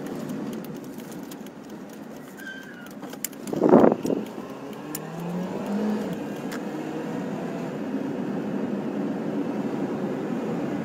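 Steady road and engine noise inside a car driving in strong wind, with a loud short whoosh about four seconds in.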